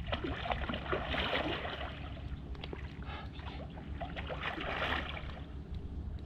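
Water splashing and sloshing at the river's edge in irregular spatters, strongest about a second in and again near five seconds, over a steady low rumble.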